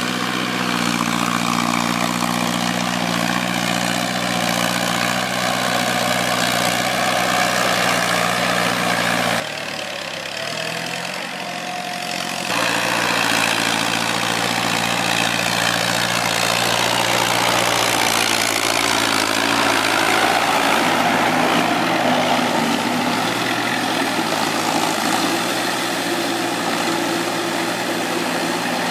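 Kubota tractor's diesel engine running steadily under load while driving a rear rotary tiller through flooded paddy mud. It turns quieter for about three seconds roughly ten seconds in, then comes back up to the same steady note.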